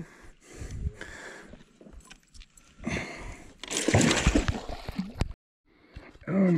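Water splashing and sloshing as a hooked Murray cod thrashes at the surface and is drawn in against the rocks, louder from about three to five seconds in. The sound cuts off suddenly a little after five seconds.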